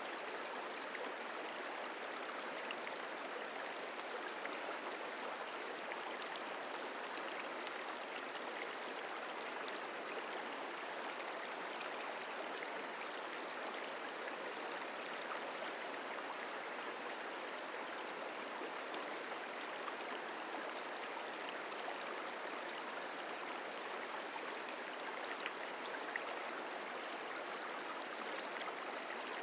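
Merced River flowing: a steady rush of moving water over rocks, with tiny splashes and no change in level.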